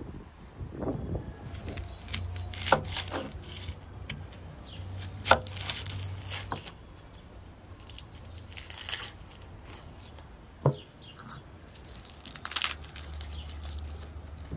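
Kitchen knife cutting and peeling onions on a wooden chopping board: a few sharp knocks of the blade against the board, with scraping and tearing of dry onion skin. Near the end a head of garlic is broken apart, its papery skins crackling.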